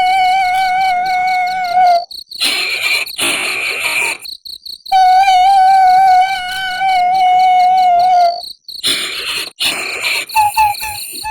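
Eerie high-pitched wailing in a female ghost-crying sound effect: two long held, slightly wavering notes of about three seconds each, separated by a breathy rush, then short broken cries near the end.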